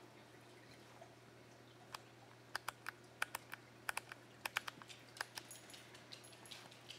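A run of about a dozen sharp, irregular clicks and taps starting about two seconds in, thinning to fainter ticks near the end, over a faint steady low hum.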